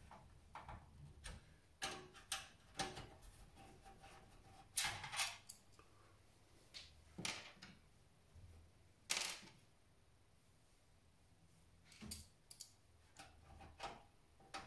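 Irregular light clicks and knocks of a screw and screwdriver being handled and driven into a metal PC case, the power supply's mounting screw. The loudest knocks come about five and nine seconds in.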